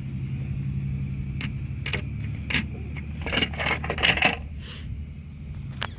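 Small roof rack parts clicking and clinking as they are handled and fitted together: scattered sharp clicks, with a busier cluster about three to four seconds in. A steady low hum runs underneath.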